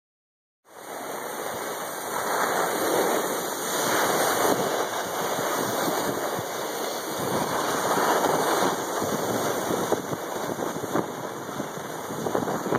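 Noise of skiing downhill: wind on the microphone and skis sliding on packed snow. It starts about half a second in, swells and eases a few times, and has some short crackles near the end.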